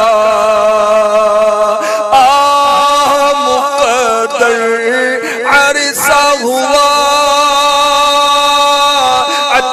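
A male voice singing an Urdu naat without instruments, drawing out long held notes that bend slowly from one pitch to the next, with brief breaks about two and six seconds in.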